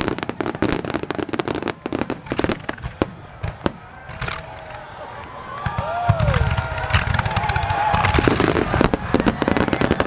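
Aerial fireworks in a dense barrage: a rapid run of sharp crackling pops from bursting shells, then heavier low booms and rumbling from about six seconds in.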